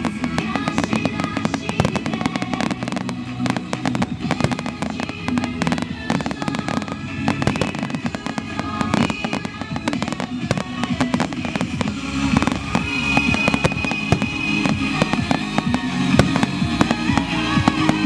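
Fireworks bursting and crackling in rapid, irregular succession over music playing.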